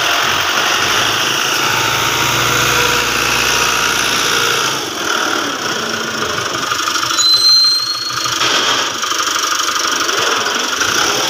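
Engine of silage-making machinery running steadily, with a brief high-pitched whine about seven seconds in.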